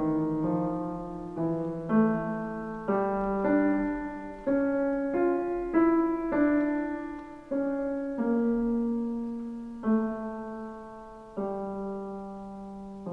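Slow, gentle solo piano music: single notes and soft chords struck about once a second, each left to ring and fade.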